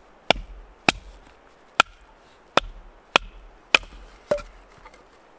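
Batoning firewood: a baton striking the spine of a knife driven into a log to split it. There are seven sharp knocks, about half a second to a second apart.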